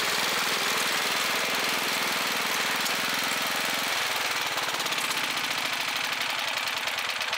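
Ride-on lawn mower's small petrol engine running steadily, then dropping to a pulsing idle about halfway through.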